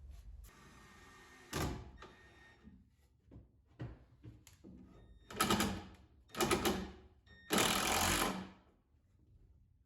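Workshop build noises: scattered knocks and clatter, with several short runs of a power tool, each half a second to a second long, the longest near the end.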